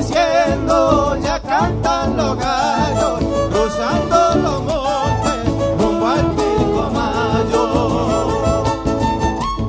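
Live Argentine chaqueñera folk music: a fiddle carries the melody with a wavering vibrato over guitar and a steady drum beat.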